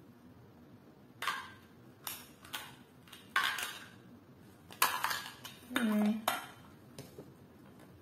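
Hard plastic clicks and knocks, about seven spread over the seconds, as a blender's plastic lid and measuring cap are turned and fitted by hand.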